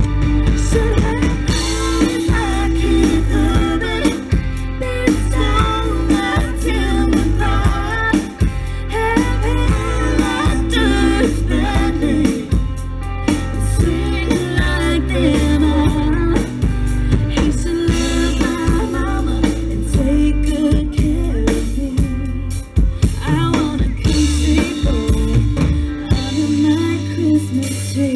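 Live country band playing a Christmas song: a woman singing into a microphone over drum kit and guitar, heard through the stage PA.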